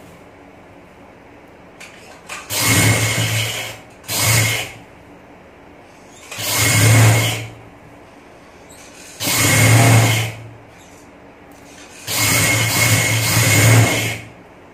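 Industrial sewing machine stitching lace onto cotton trouser fabric in five short runs, each a second or two long, with pauses between them while the fabric is repositioned.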